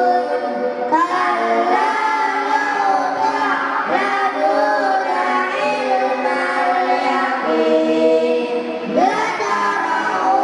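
A group of children's voices singing or chanting together in unison, in long melodic phrases with held, gliding notes.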